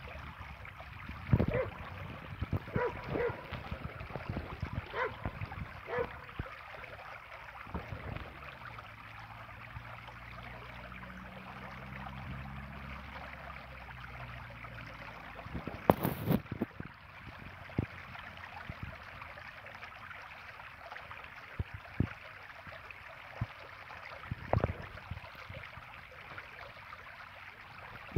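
Water running steadily along a narrow stone channel, a shallow trickle. Scattered knocks and taps through the first several seconds, a low hum for a few seconds in the middle, and a sharp knock about sixteen seconds in, the loudest sound.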